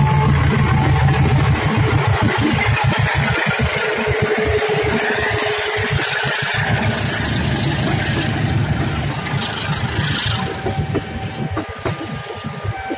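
A GE CC203 diesel-electric locomotive passes close by with its engine running, loudest in the first couple of seconds. Then its passenger coaches roll past with a run of wheel clacks over the rail joints, slowly fading toward the end.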